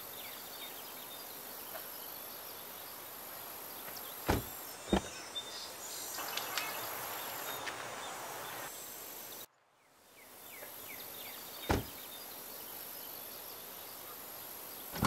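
Camp-table sounds: three sharp clicks, and for about two and a half seconds near the middle, water pouring from a small aluminium kettle into a titanium mug, over a steady high hiss of outdoor ambience.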